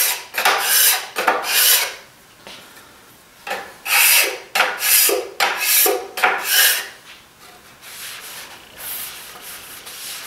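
Hand-held steel card scraper pulled in short strokes over a dried finish coat on plywood, each stroke a dry rasping scrape. The strokes come in two quick runs, then give way to softer rubbing for the last few seconds.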